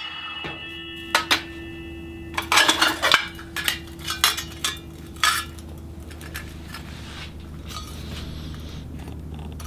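Stainless steel tumbler pieces clinking and knocking as they are handled, a string of sharp metallic clinks bunched in the middle, over a low steady hum.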